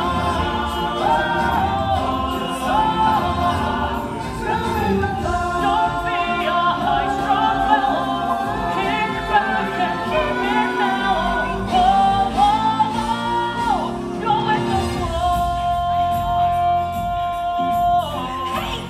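Show song from a stage musical: voices singing over backing music, ending in a long held note near the end.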